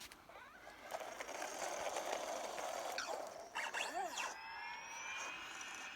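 Sphero BB-8 app-controlled droid toy in use: electronic droid chirps and warbles that glide up and down, with a quick dip-and-rise near the middle, over a steady whir that starts about a second in.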